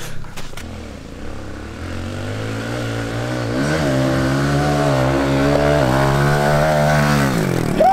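Pit bike engine running as the bike comes closer, getting louder and wavering up and down in pitch with the throttle, then dropping in pitch shortly before the end.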